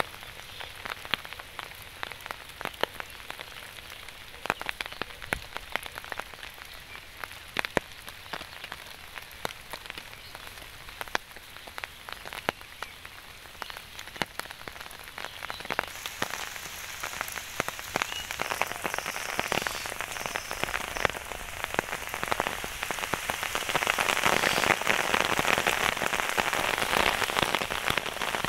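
Rain: at first sparse, with separate large drops hitting close by, then building through the second half into steady, dense rain that is heaviest near the end.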